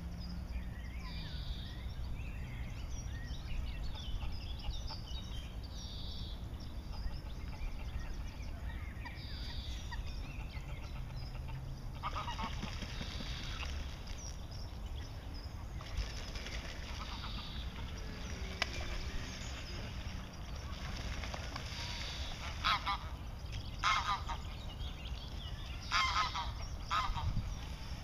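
Canada geese honking: a run of harsh calls about halfway through and a cluster of louder honks near the end. Small birds chirp higher up in the first half, over a steady low rumble.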